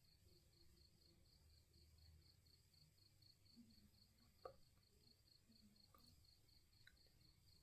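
Near silence with faint cricket chirping, a high even pulse about four to five times a second, and one light click about four and a half seconds in.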